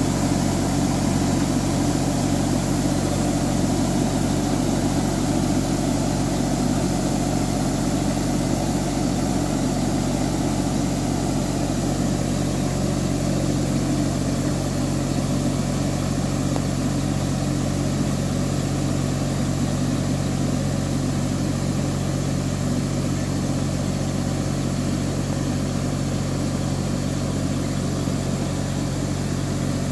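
Engine of a ride-on boom sprayer running at a steady speed while it sprays, a constant low hum that grows slightly fainter as the machine moves away.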